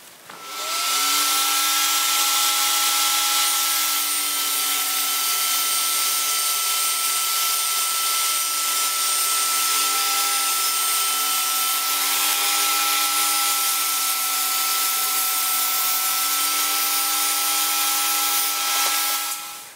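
Table saw starting up, its pitch rising for about a second, then running steadily as it rips a melamine board to width. The pitch sags slightly now and then under the cut, and the saw cuts off just before the end.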